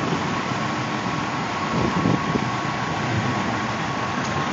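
Idling diesel engines of parked semi trucks running steadily, a low rumble under an even hiss, with a thin steady whine above it.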